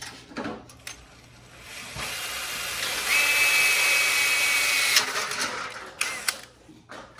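Cordless drill boring a marked hole through a steel electrical panel cover. The drill spins up about a second and a half in and runs under load for about three seconds, with a high steady whine from the bit in the metal in the second half, then stops. A few sharp clicks and knocks follow near the end.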